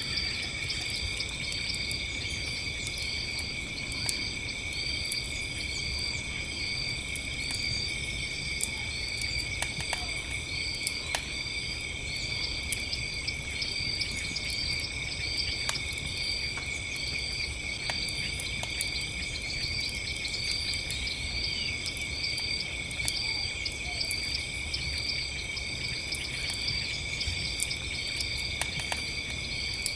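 Campfire crackling with scattered sharp snaps over a steady chorus of crickets trilling. One insect chirps in a regular rhythm a little more than once a second.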